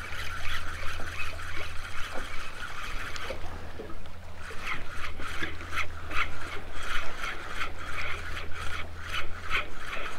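Spinning reel cranked to retrieve a jig, a soft rhythmic whir of about three turns a second from about halfway through, over a steady low hum.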